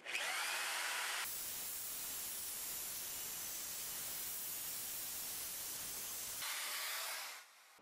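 Ryobi PE1600 900-watt single-action polisher running at full speed, its 150 mm sponge buff working extra-fine compound over faded car paint: a steady rushing whir that cuts off about seven and a half seconds in.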